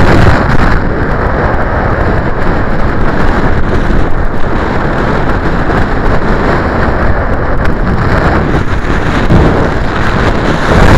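Strong wind buffeting the microphone: a loud, steady rumbling rush.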